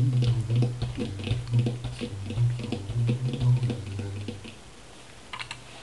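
Plucked string instrument playing a short melodic passage in quick, evenly struck notes, which dies away about four and a half seconds in, leaving a few faint clicks.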